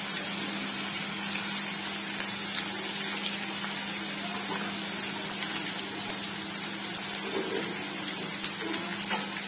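Sliced spiny gourd frying in oil in an aluminium wok: a steady sizzle, with a constant low hum underneath.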